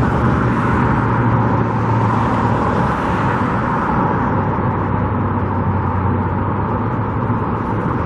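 Road traffic noise: a steady rush of passing vehicles with a low engine hum, easing a little about halfway through.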